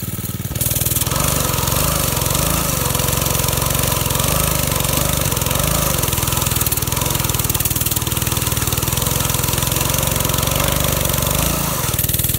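Baja Dirt Bug minibike's 2.5 hp engine held at high throttle for a burnout attempt, its pitch wavering up and down as it labours without enough power to break the rear tyre loose. The revs drop near the end.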